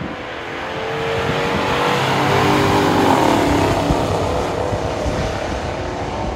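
Two stock muscle cars' V8 engines at full throttle, racing side by side down a drag strip. Their note climbs in pitch as they accelerate, is loudest about three seconds in, then fades as they pull away.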